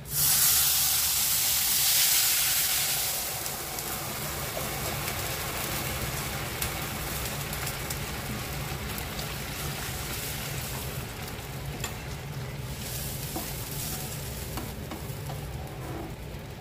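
Water poured into a hot kadhai of ghee-roasted broken wheat hits with a sudden loud sizzle. The sizzle eases after about three seconds into a steady bubbling hiss, with a few light scrapes of a wooden spatula stirring.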